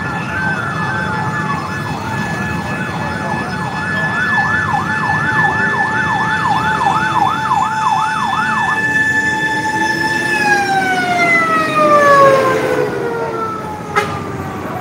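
Fire engine sirens over street traffic. A fast yelp, about three up-and-down sweeps a second, runs over a steady wail. The yelp stops about nine seconds in, and near the end the steady tone slides down in pitch. A sharp click comes shortly before the end.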